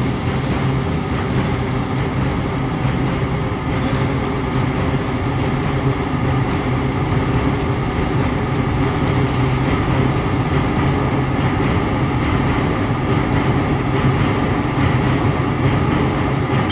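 Burning oil-well gusher: a loud, steady, dense rushing noise with a low hum underneath.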